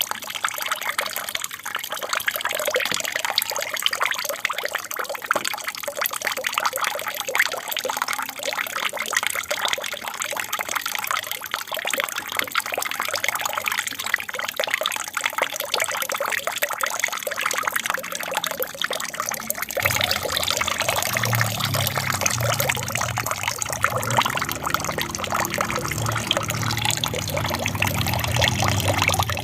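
Water from an aquarium's waterfall feature splashing and trickling steadily into the tank. About two-thirds of the way in, a low hum joins it.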